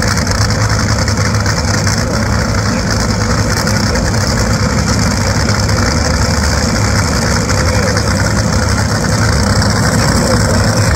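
Top Fuel dragsters' supercharged, nitromethane-burning Hemi V8 engines idling loudly and steadily at the starting line.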